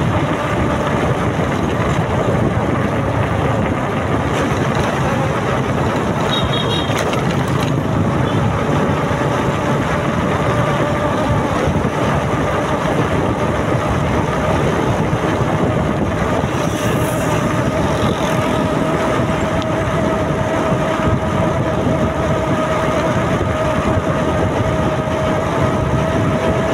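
Motor scooter riding at cruising speed, recorded from the rider's seat: a steady engine drone under wind and road noise, the drone creeping slowly up in pitch over the second half.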